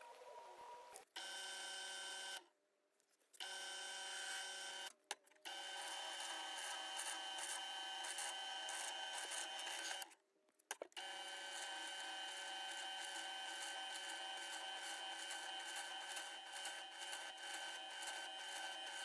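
Benchtop drill press running with a steady whine, its bit boring into a poplar lure blank clamped in a drill-press vise. The sound drops out twice for about a second.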